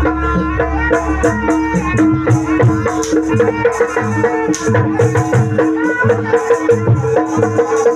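Loud Javanese jaranan-style gamelan music over a loudspeaker system. A melody moves over steady held tones, with regular low drum strokes coming in about two seconds in and jingling rattle strokes throughout.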